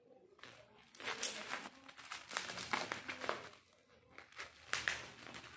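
Plastic packaging crinkling and rustling in irregular bursts as it is opened.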